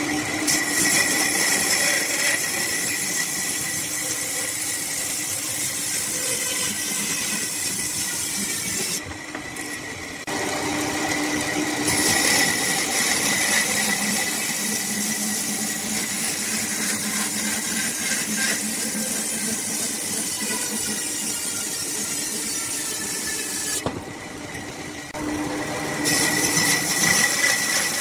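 Bandsaw cutting through a log section: a steady whine from the machine and running blade over the hiss of the cut. Twice the sound drops quieter for a second or so, then comes back.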